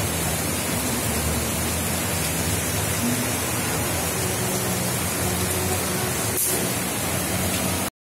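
Steady rush of water from a small waterfall and stream cascading over rocks, which cuts off abruptly near the end.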